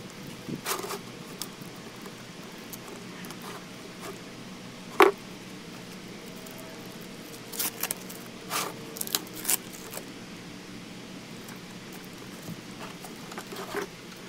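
Plastic wrap crinkling and tearing, and thin plastic nursery pots clicking and knocking as a stacked sleeve of black pots is unwrapped and a pot is pulled off. The sounds come in irregular clicks; the loudest is one sharp snap about five seconds in, with a run of clatters around eight to nine seconds.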